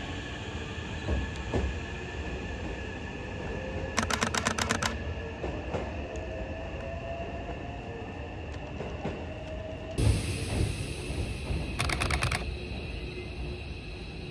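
Hankyu electric trains at a station platform. A 9000-series train pulls away with its motor whine rising slowly in pitch. About ten seconds in, the sound changes as an 8000-series train comes in, with short runs of rapid clicking.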